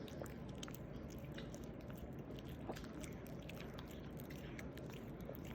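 A puppy eating, with faint, irregular small crunches and clicks of chewing.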